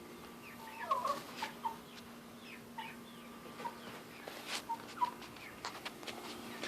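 Domestic chickens clucking softly: short, scattered clucks from a few birds.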